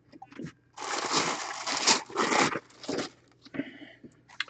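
Packaging crinkling and rustling as a sealed trading-card box is opened by hand, followed by a few light clicks and knocks from handling.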